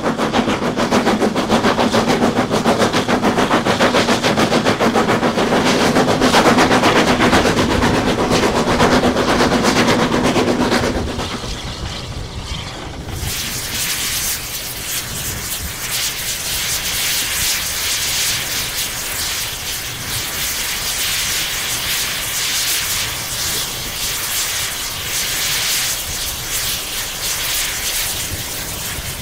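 Footplate sound of a Maunsell S15 two-cylinder 4-6-0 steam locomotive under way: rapid exhaust beats with a steady hum, which die away about eleven seconds in. A steady hiss of steam then runs over the rumble of the running engine.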